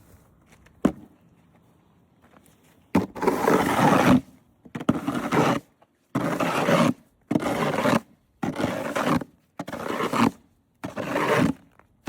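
Snow shovel scraping in a steady series of strokes, about one a second, starting about three seconds in after a single sharp knock.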